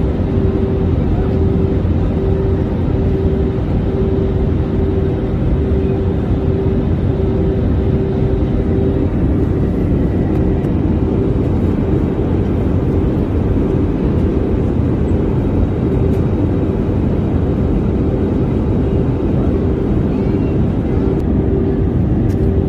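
A vehicle in motion, heard from inside: a loud, steady low rumble with a hum that pulses evenly, roughly one and a half times a second.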